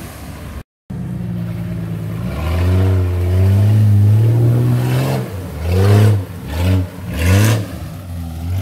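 Jeep Cherokee XJ engine revving hard as it drives through a deep mud hole. It builds up and holds, then gives a run of four or five sharp revs near the end.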